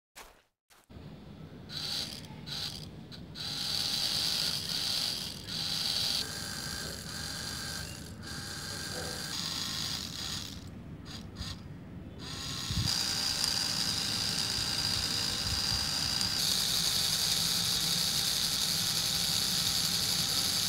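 Small DC toy motors of a model tractor and chaff cutter whirring with a high whine and a light gear rattle, turning the cutter's flywheel through a belt. The whir starts about a second in, falters briefly twice, then runs steadier and louder through the second half.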